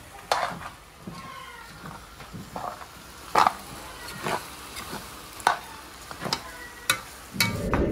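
Pieces of rooster with tomato sizzling in a large pot while a spoon stirs them, scraping and knocking against the pot several times. The meat is still frying dry, before any liquid goes in.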